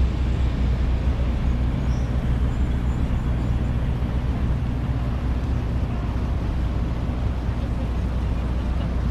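Steady low engine drone of the Valley Gem sternwheel riverboat under way, an even rumble that holds without change.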